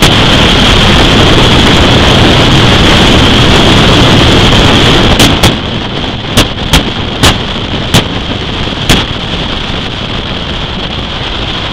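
Loud wind noise buffeting the microphone of a camera on a moving vehicle at road speed. About five seconds in it eases, and a handful of sharp pops and clicks follow.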